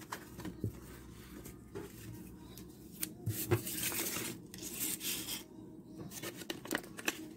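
Clear plastic card sleeves and paper packaging crinkling and rustling in the hands as photocards are unwrapped and set down, in irregular bursts with a few light clicks.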